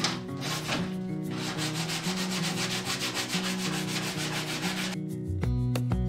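Hand sanding of a wooden wardrobe door with a sanding sponge: rubbing strokes that become continuous after about a second and stop about five seconds in, over background music.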